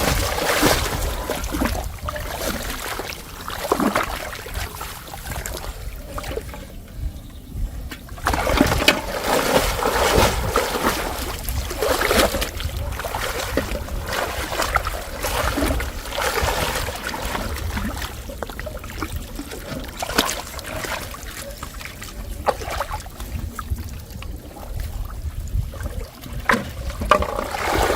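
Water splashing and trickling in irregular bursts, over a steady low rumble.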